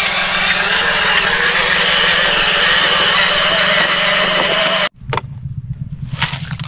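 Radio-controlled Mercedes-Benz model dump truck running as it drives: a steady motor and gear whine over a constant low hum. It cuts off suddenly about five seconds in, followed by light clicks and scrapes of small plastic toys being handled.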